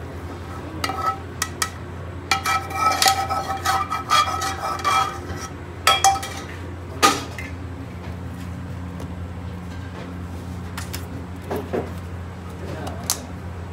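Metal spoon scraping and clinking against a steel frying pan as food is scraped out into a container, the pan ringing with each strike, in a busy run a couple of seconds in. A single sharp knock follows about seven seconds in, then a few light clicks of a plastic takeaway lid being fitted near the end.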